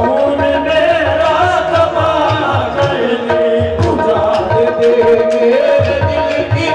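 Live qawwali: harmonium holding steady chords, tabla beating a driving rhythm, and a lead voice singing a winding, ornamented line.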